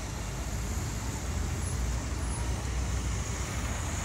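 Steady city-street traffic noise: a low rumble of car and truck engines.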